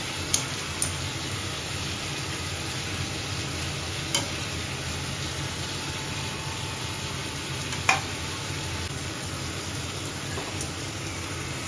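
Steady sizzling of food frying in oil in pans on a gas stove, with a few sharp metal clinks of a steel slotted ladle against the pans and stovetop, the loudest about eight seconds in.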